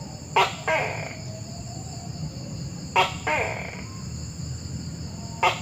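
Tokay gecko calling "to-kay" three times, about two and a half seconds apart, each call a sharp first note followed by a longer falling note. A steady high-pitched whine runs underneath.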